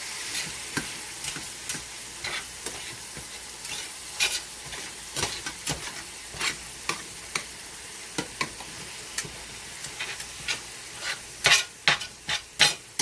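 Thin-shaved ribeye sizzling in a hot skillet while two metal spatulas chop and scrape through it to shred the meat, giving irregular sharp clinks of metal on the pan, loudest and quickest near the end.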